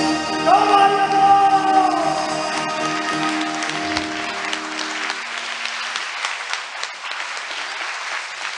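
A song ending on acoustic guitar and voice: a held sung note over a final strummed chord that rings out and fades about five to six seconds in, while the audience applauds, the applause carrying on alone after the guitar dies away.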